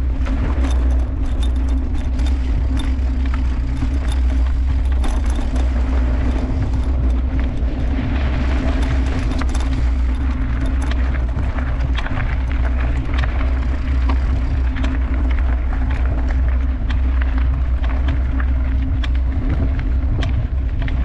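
Mountain bike ridden over rough singletrack: a steady low rumble with a constant hum, and frequent sharp rattles and clicks of the bike shaking over the ground.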